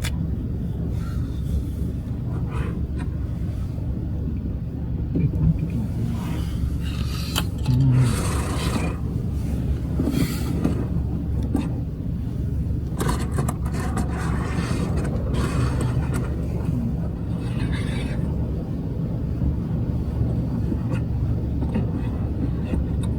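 Honda N-VAN kei van's engine and road noise, a steady low rumble, with several short hissing swells of noise partway through.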